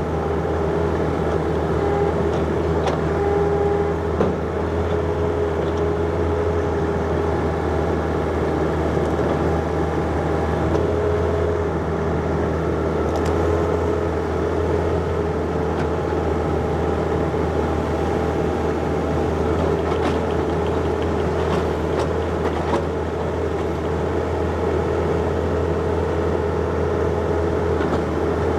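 John Deere 50ZTS mini excavator's diesel engine running steadily under load. A whine sits above the hum and shifts slightly in pitch now and then, with a few faint knocks.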